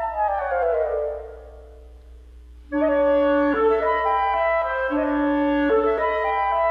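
Instrumental music accompanying the dance, with held wind-instrument notes. A run of notes steps downward and fades to a quiet held low note, then loud sustained chords come back in about three seconds in.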